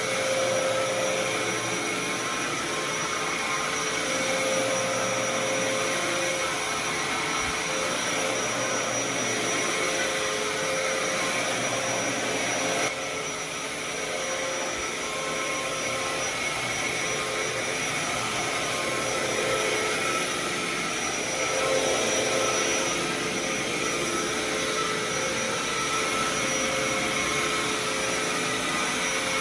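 Dyson DC07 All Floors upright vacuum cleaner running steadily with its brush bar spinning. It has a constant whine over a steady rush of air, dipping slightly in level about thirteen seconds in.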